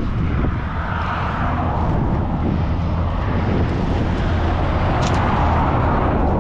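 Vehicle noise: a steady low engine rumble under a rushing noise that swells about a second in and again from about four to six seconds in.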